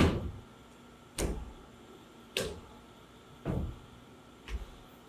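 Heavy stomps of bare feet on a wooden stage floor, five in a row about one a second, each a thud with a short ring, growing fainter as the steps move away.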